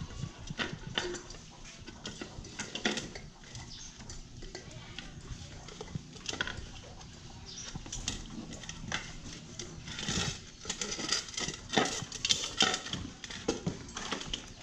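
Month-old Belgian Malinois puppies eating from a steel bowl and a ceramic plate: the dishes clink and scrape against the concrete floor as the puppies push at them, with many quick clicks and knocks that grow busier in the second half.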